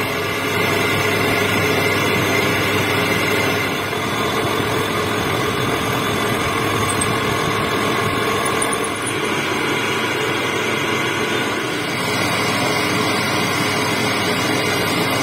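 Metal lathe running steadily while cutting a metal bar, with a drill bit in the tailstock chuck boring into it. A steady machine noise with a faint whine; the sound shifts slightly near the end.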